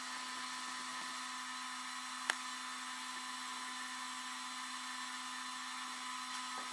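Steady electrical hum and fan whine from the bench power supply and hobby charger-discharger running a battery discharge test, with a single sharp click a little over two seconds in.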